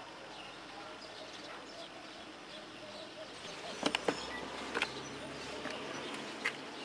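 Faint outdoor background of distant chirps and voices, broken by a quick cluster of sharp clicks just past halfway and two single clicks after it.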